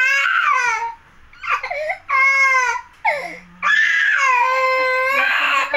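Infant crying loudly in a string of high-pitched wails with short breaks between them, the longest near the end, while being given a baby massage.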